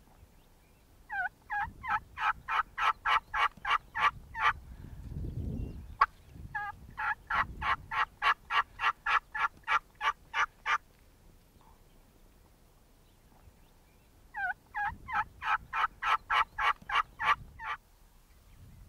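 An old WoodHaven Real Hen wooden box call yelping like a hen turkey: three long runs of evenly spaced yelps, about four a second, each run lasting three to four seconds, with pauses between.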